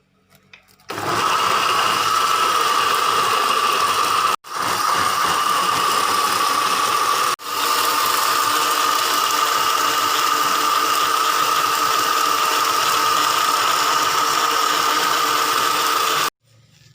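Small electric kitchen appliance motor running steadily with a high whine. It starts about a second in, cuts out for an instant twice and stops abruptly near the end.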